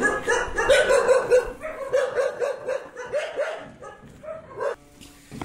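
Dogs barking in a quick string of repeated barks that thins out after about three seconds, with one last short burst near the end.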